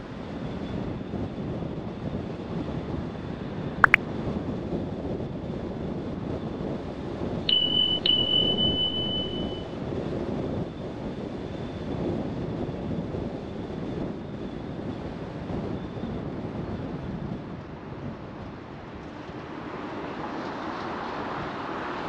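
Steady road and wind noise from a car driving. A sharp click comes about four seconds in, and a high electronic beep sounds for about two seconds a little later.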